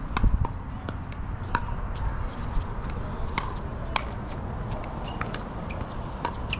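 Pickleball rally: paddles striking the plastic ball with sharp, slightly ringing pops about once a second, amid lighter clicks and shuffling footsteps on the hard court.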